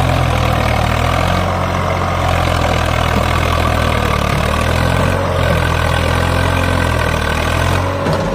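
Diesel tractor engine running steadily under load as a stuck tractor is pulled out of mud.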